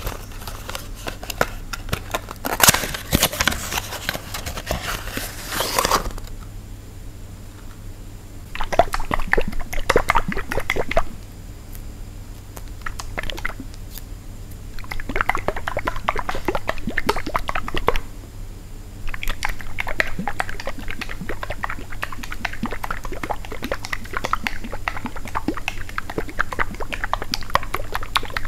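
Unboxing a package by hand: a loud stretch of tearing and ripping in the first few seconds, then several bursts of crinkling, crackling and rustling as the packaging is opened and handled.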